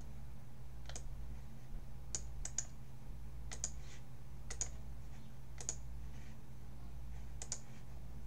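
Scattered, irregular clicks of a computer keyboard and mouse, about a dozen, over a steady low hum.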